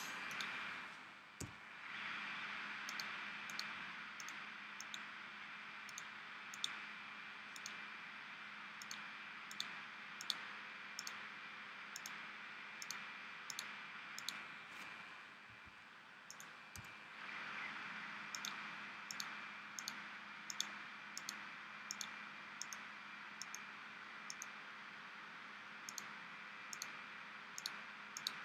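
Light clicks of a computer mouse, one or two a second at an uneven pace, as shapes are filled one by one in a drawing program, over a steady low hiss.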